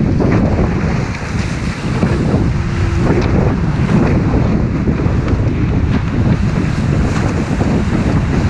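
Strong wind buffeting the camera microphone over the rushing water and spray along the hulls of a Diam 24 trimaran sailing fast in 20–25 knots of breeze. The noise is loud and steady, heaviest in the low end.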